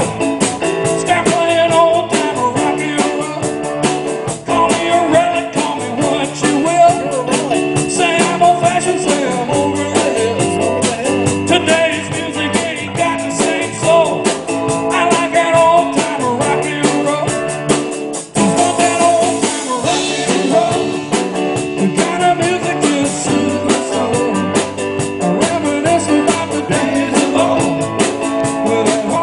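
Live band playing rock and roll with a steady beat, briefly dropping out about 18 seconds in.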